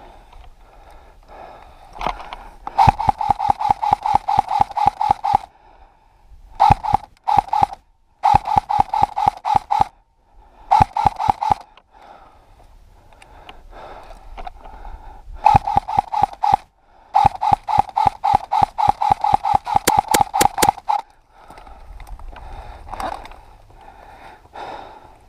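Airsoft M4 electric rifle (AEG) firing repeated full-auto bursts: rapid, evenly spaced shot clicks over the gearbox motor's steady whine, about six bursts of one to three seconds each with short pauses between.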